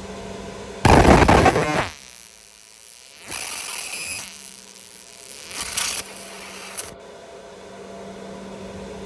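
Laser engraver buzzing in bursts as it etches a logo into a black splitter panel, over a steady hum. The loudest burst comes about a second in and lasts about a second, with shorter hissy bursts later.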